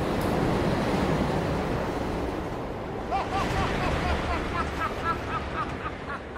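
Subway train car running with a steady rumble. About three seconds in, a man starts laughing in quick, high, repeated ha-ha sounds, about three or four a second, climbing higher in pitch as it goes on.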